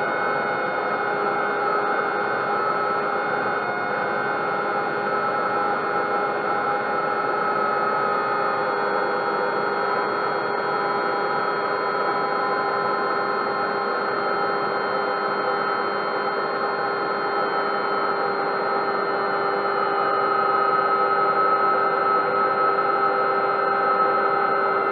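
Steady whine of small motors running: several held tones over a hiss that drift slightly in pitch and grow a little louder near the end.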